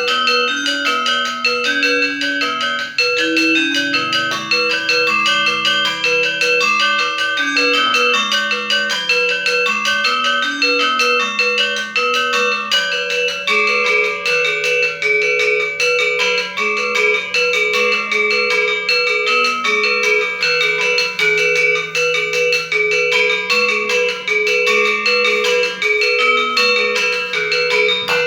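Balinese gender (bronze-keyed metallophone) played with two mallets, sangsih part: a slow-moving low melody beneath fast, continuous figuration of repeated high notes.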